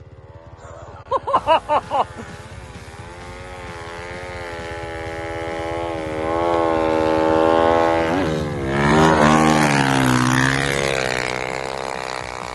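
Honda CRF450R single-cylinder four-stroke engine on a snow bike revving, its pitch rising and falling as the rider works the throttle. A quick run of about five short throttle blips comes about a second in. The engine grows louder toward the middle, drops off sharply for a moment, then comes back at its loudest and fades near the end.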